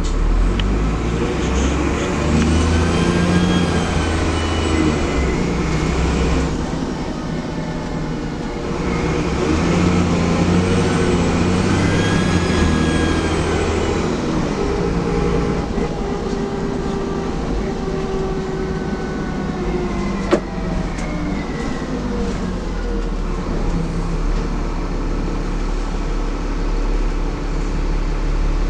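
Dennis Trident double-decker bus's diesel engine heard from on board, pulling away with a high turbocharger whistle that rises and falls in pitch twice, once in the first few seconds and again about ten seconds in, then running more quietly. A single sharp click about twenty seconds in.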